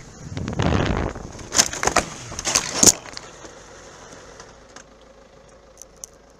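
Motorcycle crash: several sharp impacts and scrapes as the bike goes down onto the road, about one and a half to three seconds in, the last one the loudest. After that it is much quieter, with a few faint clicks.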